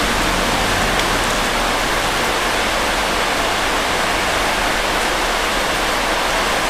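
A steady rushing hiss, even and unchanging, with no separate sounds standing out of it.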